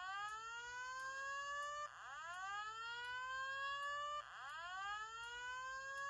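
Simplex TrueAlert fire alarm speaker strobe sounding its evacuation tone: a rising whoop that climbs quickly and levels off, repeated about every two and a half seconds.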